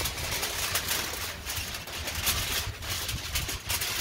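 Aluminium foil crinkling and rustling as hands fold and press it around racks of ribs, an irregular run of crackles.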